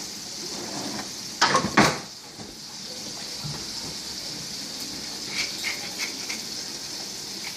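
Minced garlic sizzling steadily in melted margarine in a frying pan, with two sharp knocks about a second and a half in and a few light ticks later on.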